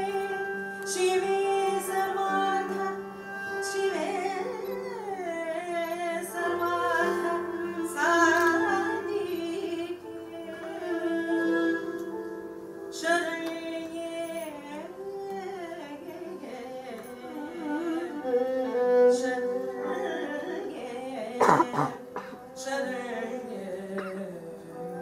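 Carnatic-style female voice singing a melody full of sliding ornaments, with a violin weaving along, over a steady drone. A single sharp accent a little past the three-quarter mark.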